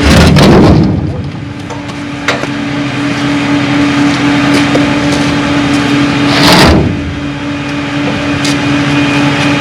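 Two loud crashes of old bricks being dumped onto a pile or into a skip, one right at the start and one about six and a half seconds in, with a few sharp knocks between them. A steady engine hum runs underneath.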